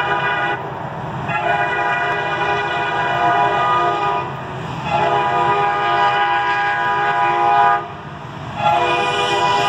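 Norfolk Southern diesel locomotive's air horn sounding a chord in long blasts, the crossing warning of an approaching freight train. A blast ends shortly after the start, two long blasts of about three seconds follow, and another begins near the end, all over a steady low rumble.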